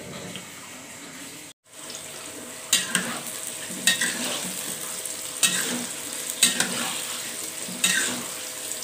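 Tofu cubes frying in hot oil in a wok, a steady sizzle starting about two seconds in. A spatula scrapes and turns them five times, roughly every one to one and a half seconds.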